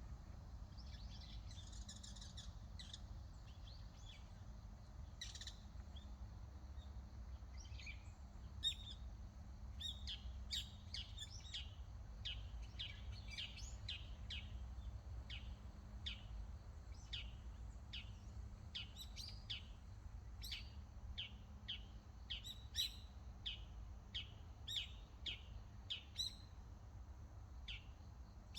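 Small birds singing: short, high, quick chirps, a few at first and then a rapid run of them from about a third of the way in. A steady low rumble lies underneath.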